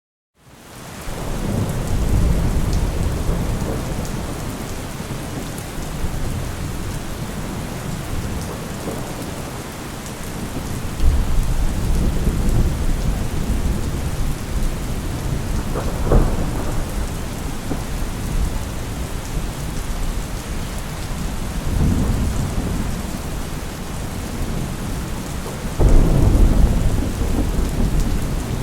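Steady heavy rain with thunder rolling several times, one deep rumble after another, and a sharper crack about halfway through. The sound fades in from silence at the start.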